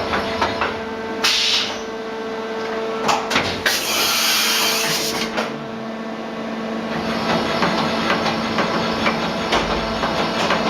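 Tsugami MA 5.5FP machining center running, with a steady whine that stops about seven seconds in over continuous rapid clicking. Two bursts of hissing come through, a short one about a second in and a longer one of nearly two seconds around the middle.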